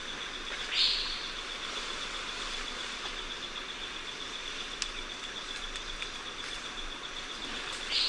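Forest ambience carried by a steady, high, pulsing insect trill, broken by two short, sharp sounds that rise in pitch, one about a second in and one at the very end.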